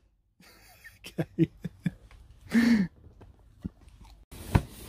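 A quick run of short clicks and knocks close to the microphone, then one louder thump near the end.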